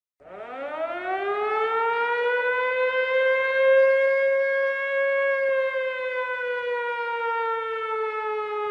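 A siren winding up: a single wailing tone that rises in pitch over about a second, holds steady, then slowly sags in pitch.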